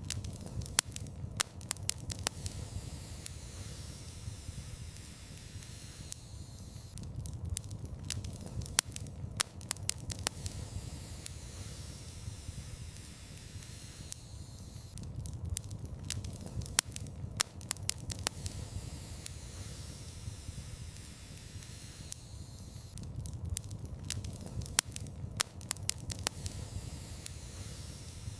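Wood fire in a fireplace burning with a low steady rumble and hiss of flames, and sharp crackles and pops that come in clusters every eight seconds or so.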